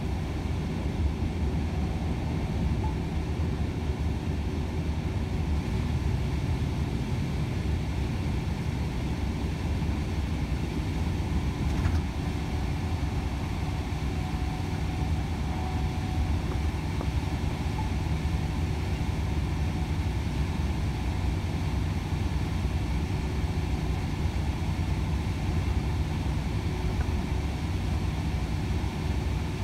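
Cab interior of a Volvo FH 500 truck at motorway cruising speed: the steady low drone of its 13-litre six-cylinder diesel engine mixed with tyre and road noise.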